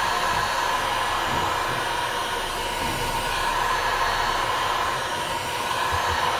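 Heat gun blowing steadily: an even rushing hiss with a constant whine, heating the phone's screen to loosen its adhesive for removal.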